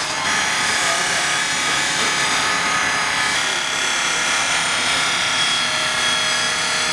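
CNC polishing machine running, its polishing head rubbing on a stainless steel vase: a steady hiss with several high, steady whining tones.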